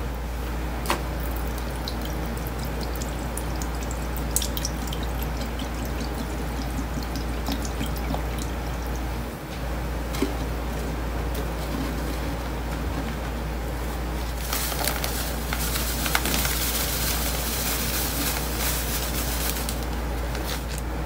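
Liquid cleaner poured from a bottle onto kitchen sponges in a stainless steel sink, with scattered drips and splats. About two-thirds of the way in, powdered detergent starts pouring onto them in a steady hissing stream that stops just before the end. A steady low hum runs underneath.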